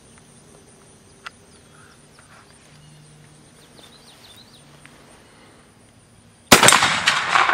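A single shot from a Pedersoli reproduction Remington Rolling Block rifle firing a .45-70 405-grain round loaded with black powder substitute, about six and a half seconds in, followed by a long echoing rumble that fades away. Before the shot there is only a quiet background with one faint click about a second in.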